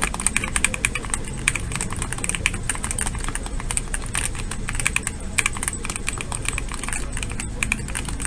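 Fast continuous typing on a GMK67 mechanical keyboard: a steady run of keystroke clacks, several a second, as a sound test of the board's sound profile.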